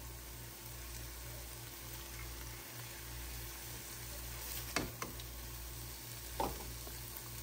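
Shrimp, onions and peppers sizzling gently in a nonstick frying pan, with a few short clicks of metal tongs against the pan, three of them in the second half, as the shrimp are lifted out.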